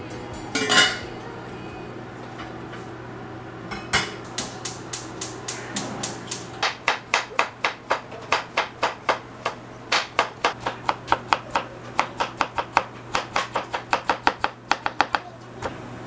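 Chef's knife julienning cucumber on a wooden cutting board: quick, even knocks of the blade on the board, slower at first and then about three a second. Before that, under a second in, a single loud clank of a pot lid being handled.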